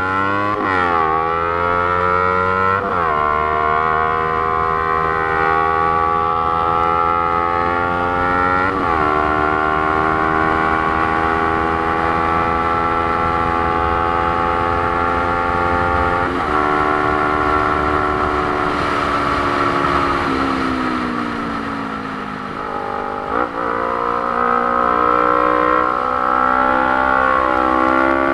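Motorcycle engine pulling through the gears: its pitch climbs and drops sharply at each of four upshifts. Later the pitch falls away as the bike slows, then climbs again near the end.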